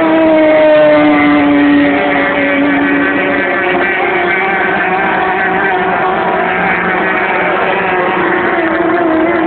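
Racing powerboat engine running at high revs on the water, its pitch dropping gently over the first couple of seconds as the boat passes, then holding steady.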